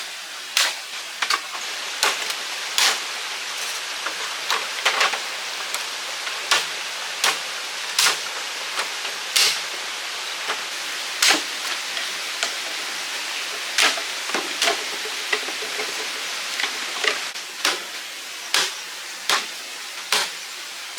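Steady rush of running water, with sharp knocks or snaps at irregular spacing, about one a second, over it.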